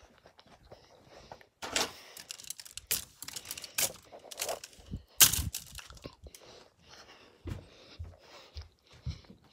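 Irregular rustling, scraping and knocks from a phone being handled and moved about close to its microphone, with a few sharp knocks standing out, the loudest about five seconds in.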